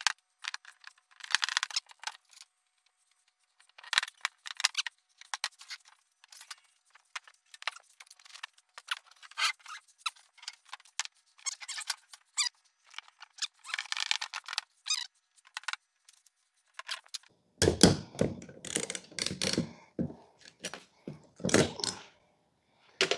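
Irregular clicks, squeaks and scrapes of hands working on a wooden shipping crate and its packing. About two-thirds of the way in, these give way to louder knocks and thumps.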